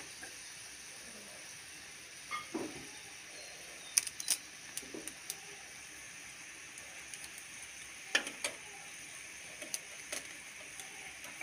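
Rice boiling hard in water in a small saucepan over a gas burner: a steady hiss with scattered sharp ticks and pops, a pair about four seconds in and another pair about eight seconds in.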